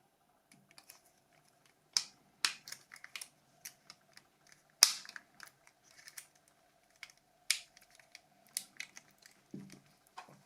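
Sharp plastic clicks and taps of a Nokia 6233's body shell parts being handled and snapped together, a few loud snaps among many lighter ticks.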